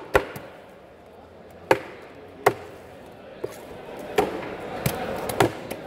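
A heavy knife chopping a red snapper into pieces on a thick wooden block: about seven sharp, separate chops at uneven intervals, roughly one every second.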